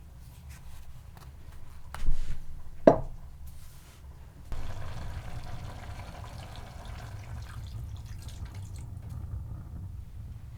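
A knock, then a single drip-like plink, then water pouring steadily into a container from about four and a half seconds in.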